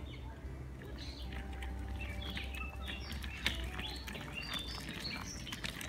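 Several wild birds chirping and calling in woodland, many short high notes overlapping, over a low steady rumble.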